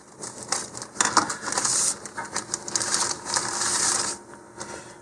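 A clear plastic kit bag being cut open with scissors, then crinkling and rustling as the model rocket parts are pulled out of it: a run of crackles and small clicks.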